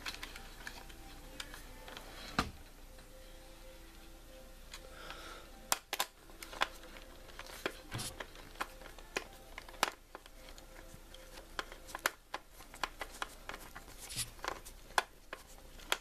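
Irregular small clicks and taps of a screwdriver and fingers working a wire under a metal terminal screw on the plastic back of a fire alarm horn-strobe, as the wire is fastened.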